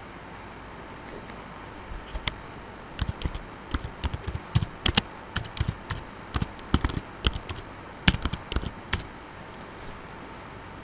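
Typing on a computer keyboard: a run of quick, irregular key clicks that starts about two seconds in and stops about nine seconds in.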